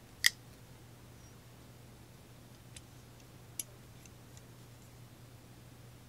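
Metal clicks from a titanium framelock folding knife being worked in the hand: one sharp click just after the start, then a few faint ticks a few seconds later.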